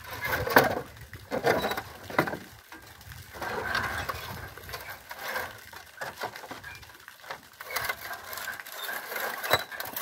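Irregular knocks and scraping as a sluice gate on a small hydroelectric plant's water intake is worked shut, the gate knocking against brickwork.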